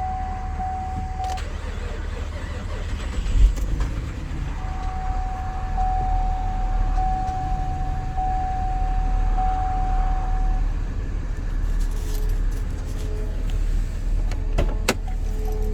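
2011 Camaro engine running after a timing chain replacement, with a tapping that the owner takes for a bad lifter. There is a single thump about three and a half seconds in, and a steady high tone sounds on and off.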